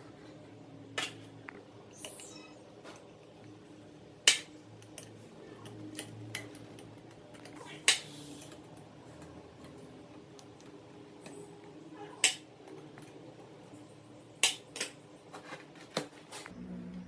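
Hand tools and small hard parts being picked up and set down: a run of sharp, separate clinks and knocks, about seven, at uneven intervals over a low steady hum.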